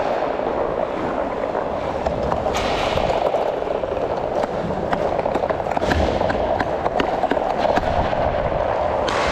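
Inline hockey skate wheels rolling over a plastic sport-tile rink floor: a steady rolling rumble peppered with many small clicks and an occasional sharper knock.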